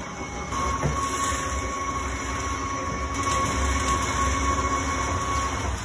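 Motor of a self-cleaning litter box (Litter-Robot) turning its globe in a cleaning cycle: a steady mechanical hum with a thin whine that starts about half a second in and stops shortly before the end.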